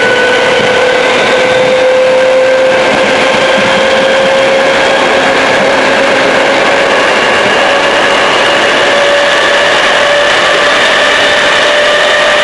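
ČD class 460 electric multiple unit running at speed, heard from inside the train: a loud, steady rush of running noise with the whine of its traction drive rising slowly in pitch as the unit gathers speed.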